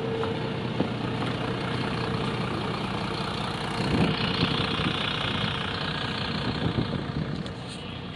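Mercedes-Benz Citaro city bus engine running steadily at a bus stop, growing louder about four seconds in as the bus pulls away, then fading.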